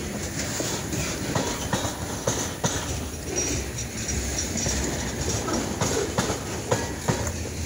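Freight train rolling past with a steady rumble, its wheels clicking and clacking over the rail joints and a faint, high wheel squeal now and then.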